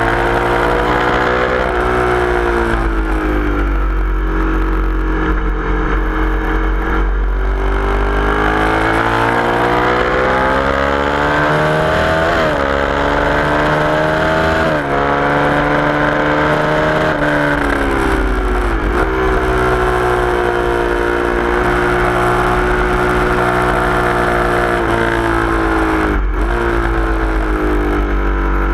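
Sport motorcycle engine under hard acceleration on a race track, heard from an onboard camera. The engine pitch climbs and then drops sharply at each gear change, several times in a row, over heavy wind rumble on the microphone.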